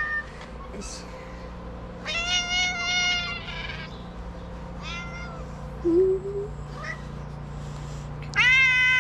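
Domestic cat meowing: a long, steady meow about two seconds in, a short one about five seconds in, and a loud one near the end. A brief low sound comes about six seconds in.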